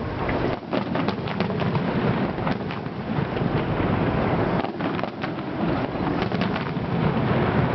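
Fireworks going off: a rapid run of bangs and crackles over a continuous low rumble.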